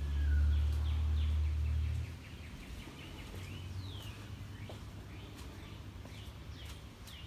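A low rumble for about the first two seconds, then stopping, with small birds chirping faintly throughout in short repeated calls and quick downward-sliding notes.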